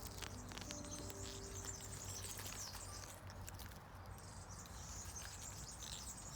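Small birds chirping and twittering in quick high calls, with the last notes of background music dying away in the first couple of seconds.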